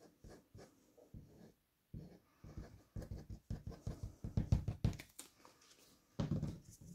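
Plastic squeeze bottle of liquid craft glue pressed and its nozzle drawn along a paper strip: a run of short, irregular scratchy rubbing sounds, thickest in the middle, with a louder rustle near the end.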